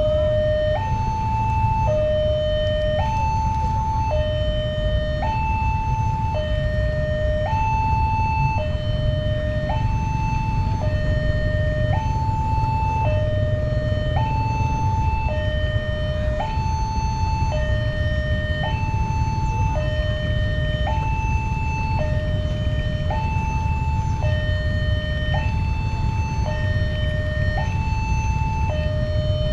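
Railway level-crossing alarm sounding a steady two-tone hi-lo siren, switching pitch about once a second, over a constant low rumble.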